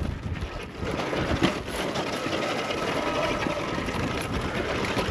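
Electric dirt bike riding over rocky ground in strong wind: wind buffets the microphone, with the faint steady whine of the hub-less electric drive motor under load and a single knock about one and a half seconds in.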